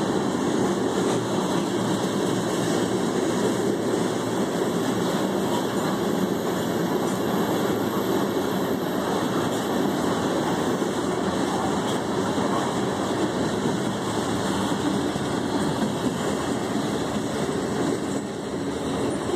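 Loaded covered hopper sand cars of a freight train rolling past at close range: steady wheel-and-rail noise that eases off near the end as the last car clears.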